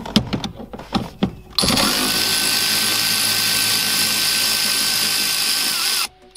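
Milwaukee cordless electric ratchet running for about four and a half seconds, undoing a bolt, with a steady motor whine. A few clicks as the tool is fitted come before it, and it stops suddenly with a slight drop in pitch.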